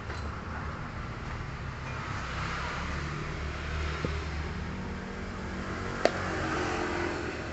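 A motor engine running steadily with a low, pulsing rumble. There is a light tap about four seconds in and a sharp click about six seconds in.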